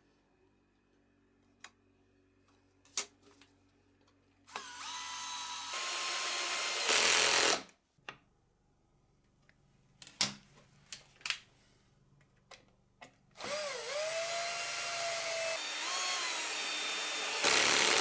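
Power drill run twice for a few seconds each, its motor whine sliding up and down in pitch with the trigger and ending in a louder burst at full speed. Scattered clicks and knocks come between the runs.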